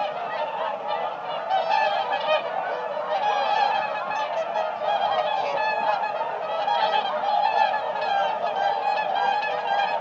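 A flock of whooper swans calling, many birds at once in a dense chorus of overlapping calls with no break.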